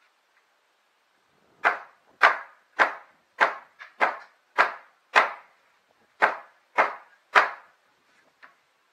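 Hammer blows on old wooden roof planks: about ten sharp strikes at an even pace, a little under two a second, beginning a second and a half in and stopping near the end.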